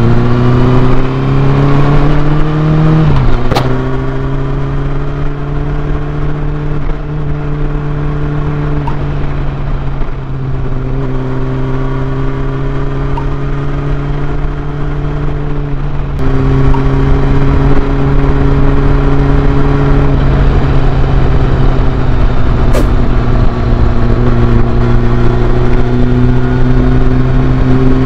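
Honda CB400 Super Four's inline-four engine through a Yoshimura slip-on exhaust, revving up through a gear and shifting up about three seconds in. It then runs at a nearly steady engine speed, getting louder as the throttle opens a little past the middle.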